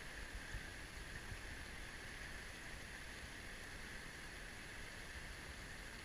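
Steady rush of a shallow, rocky stream running over stones.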